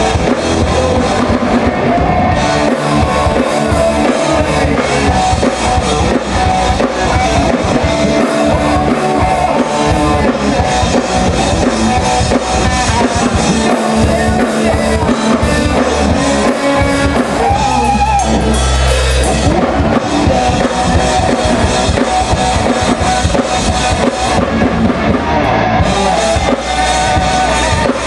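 Live rock band playing loudly: a drum kit, electric guitars and a bass guitar.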